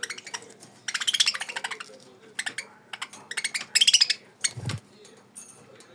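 A budgerigar clambering about its wire cage, claws and beak clinking on the metal bars in two quick bursts about a second in and about four seconds in, with scattered clicks between. A single dull thump follows just after the second burst.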